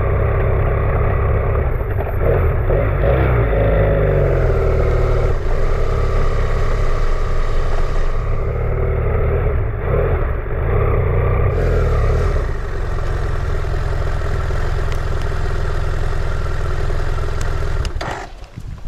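BMW F800GS parallel-twin engine running at low speed, its pitch rising and falling with the throttle, then settling to a steady idle about two-thirds of the way through and cutting out near the end.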